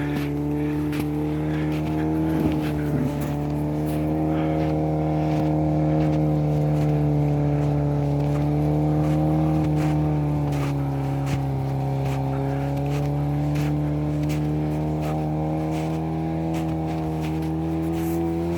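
Suzuki Vitara engine running at a fairly steady speed while driving, its pitch drifting slightly, with scattered clicks and knocks throughout.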